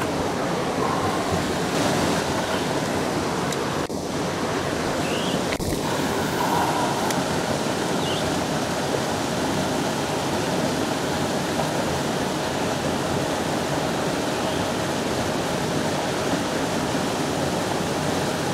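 Steady rush of water pouring through a spillway, a continuous even hiss with no pauses.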